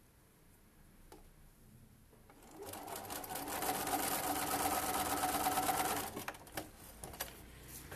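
Sewing machine running in one steady burst of about three and a half seconds while seaming patchwork fabric. It starts a couple of seconds in and stops abruptly, and a few light clicks follow.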